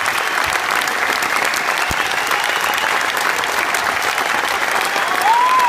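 Audience applauding steadily, with a short whistle that rises and falls near the end.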